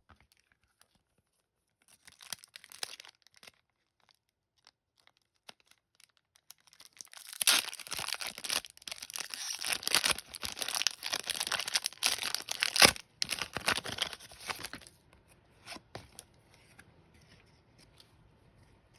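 A hockey trading card pack's wrapper being torn open and crinkled: a brief crinkle about two seconds in, then a longer stretch of tearing and crinkling through the middle with one sharp click, dying away to a few faint clicks.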